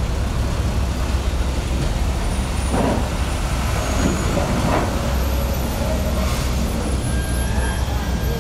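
Steady low rumble of large diesel engines running, with a few faint distant sounds between about three and five seconds in.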